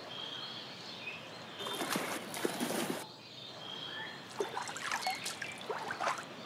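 Water splashing in an otter pool as fish land and otters swim after them: a burst of splashing about two seconds in, then lighter, crackly splashes near the end. A bird gives two short calls in the background.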